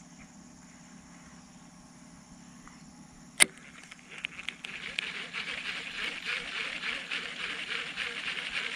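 Baitcasting reel: one sharp click about a third of the way in, then from about halfway the reel being cranked to retrieve the spoon lure, a steady fast ticking whir.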